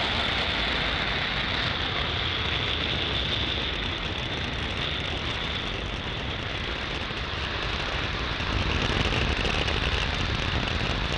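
Falcon 9's nine first-stage Merlin engines firing at full power in ascent, heard as a steady, noisy rumble that dips slightly midway and swells again near the end.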